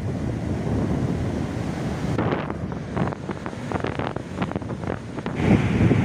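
Strong wind buffeting the microphone over surf breaking on the beach. From about two seconds in, the wind crackles irregularly.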